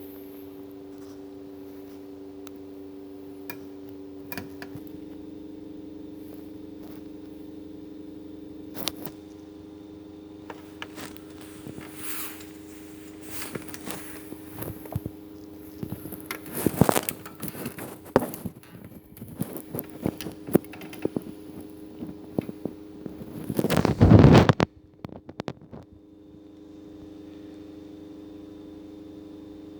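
Bench repair work: scattered clicks, taps and scrapes of handling parts and tools, busier in the second half, with a louder burst of about a second around 24 seconds in. A steady electrical hum runs underneath.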